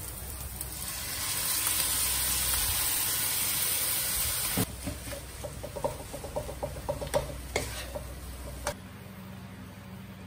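Food sizzling loudly in a hot pan. About four and a half seconds in it changes to a run of clicks and scrapes of a utensil working against the pan, as the food is stirred and tossed.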